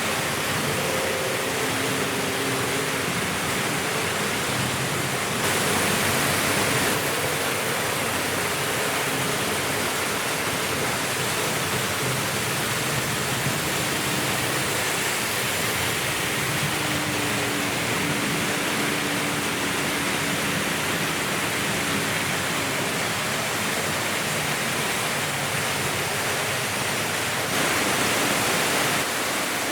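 Several Märklin H0 model trains running at once, with their own mechanical sound and no digital sound: a steady rushing of wheels on metal track with a faint hum of small motors, swelling twice as a train passes close.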